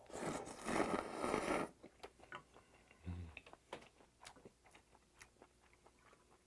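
A man slurps a mouthful of chewy kudzu cold noodles in one long, loud slurp lasting about a second and a half. He then chews with small, wet clicking sounds, giving a brief low hum about three seconds in.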